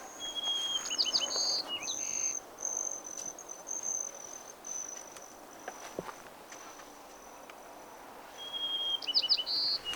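Insects trilling steadily on a high note, with a short bird song phrase of quick downward chirps twice, about a second in and again near the end.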